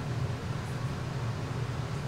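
Steady low hum with a faint hiss: constant room background noise.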